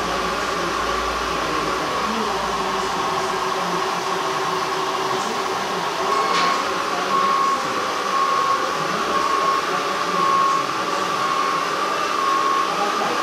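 Radio-controlled scale wheel loader's electric drive and hydraulic pump whining steadily as it climbs a dirt pile and works its bucket. About six seconds in, the pitch rises and a reversing beeper starts, beeping about twice a second.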